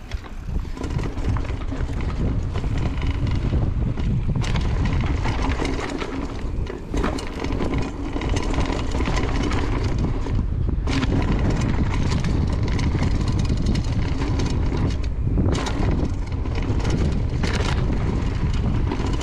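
Mountain bike descending fast on a dirt trail, heard from a camera mounted on the bike: heavy wind rumble on the microphone with tyres on loose dirt and the bike rattling over bumps. The sound builds over the first second or so as the bike picks up speed, then stays steady.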